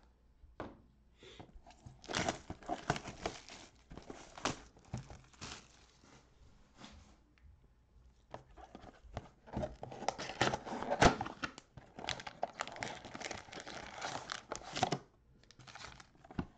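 Plastic wrap being torn off a trading-card box and crinkled, then the cardboard box opened and the card packs handled. The tearing and crinkling come in two long spells of crackle, the second the longer and louder, with a few sharp clicks.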